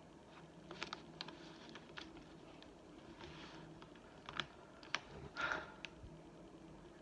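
Scattered light clicks and taps with a few brief soft rustles, as food and utensils are handled while a sandwich is cut.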